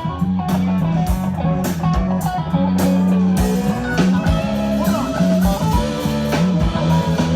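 A band playing an instrumental passage of a rock song: electric guitar over a steady bass line and a regular drum beat, with no singing.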